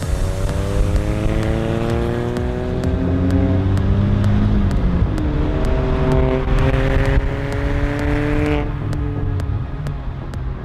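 Car engine accelerating hard: its note climbs, drops briefly about five seconds in at a gear change, climbs again through the next gear, then falls away as the throttle is lifted near the end.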